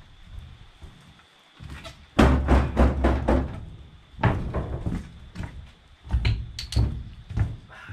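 Footsteps and thuds on the rusted sheet-metal floor and panels of an abandoned bus, the metal clanking and rumbling underfoot in irregular knocks. The loudest stretch comes about two seconds in.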